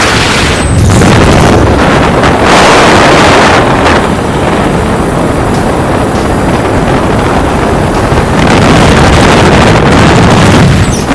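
Loud, dense engine and wind noise inside a small aircraft's cabin in flight, with wind buffeting the microphone. It eases off for a few seconds in the middle and swells again near the end.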